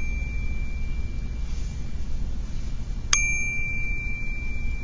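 Metal tuning fork ringing with a single high steady tone that slowly fades. It is struck again about three seconds in with a sharp clink and rings on.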